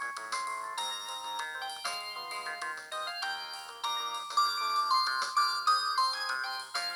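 Samsung SGH-M150 mobile phone playing a polyphonic ringtone: a fast melody of short notes, several sounding together.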